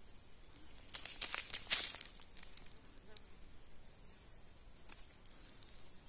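Dry twigs and leaves crackling as someone moves through dry brush: a dense run of crackles lasting about a second, starting about a second in, then a few scattered snaps.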